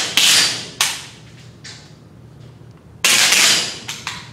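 Several air rifles firing one after another, shots not in unison: a pair right at the start, a smaller one about a second in, and a louder one about three seconds in, each report ringing out briefly in the hall, with two lighter cracks near the end.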